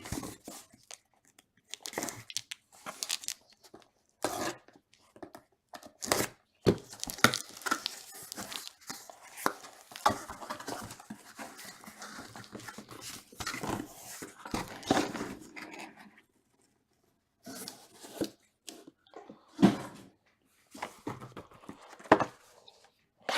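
Trading card box packaging being torn open by hand: irregular tearing and crinkling of plastic wrap and cardboard, with a short pause about two thirds of the way through.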